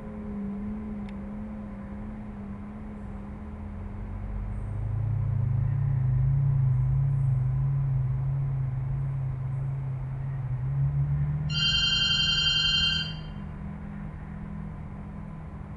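A telephone rings once, an electronic ring lasting about a second and a half, over a low, wavering hum that swells in the middle.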